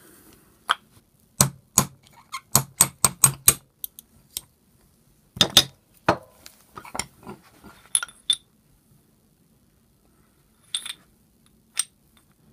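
Sharp metallic knocks on the gear shaft assembly of a vintage Fein power tapper as it is driven out through its housing: a quick run of about seven strikes, another group a couple of seconds later, then two light clinks near the end.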